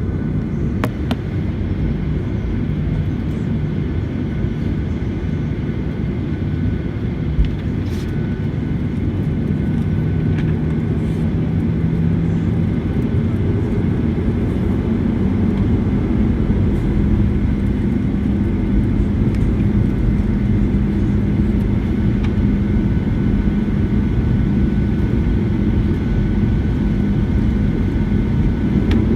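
Boeing 737-800's CFM56 jet engines running with a steady rumble and hum. The hum steps up in pitch about halfway through, and the sound slowly grows louder, with a whine starting to rise near the end.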